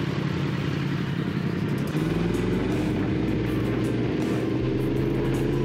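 Motorcycle engine running under way, its pitch rising slightly about two seconds in and then holding steady.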